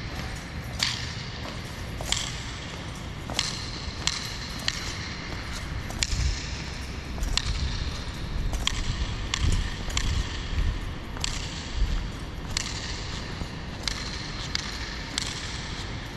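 Honor guard marching in slow ceremonial step: sharp, echoing beats roughly once every second and a bit, some doubled, ringing through a large hard-floored hall.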